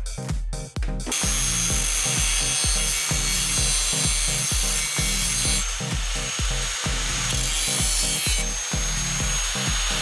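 DeWalt angle grinder starting about a second in and cutting through the steel front fender along the marked line, a steady high whine and hiss that eases for a while in the middle and then picks up again. Electronic background music with a steady beat plays under it.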